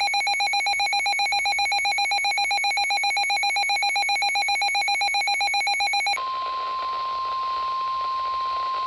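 An electronic alert tone trills rapidly, pulsing several times a second with a buzzy, ringer-like sound. About six seconds in it cuts off abruptly and is replaced by the steady single-pitch NOAA Weather Radio warning alarm tone near 1050 Hz, which signals that a warning message follows.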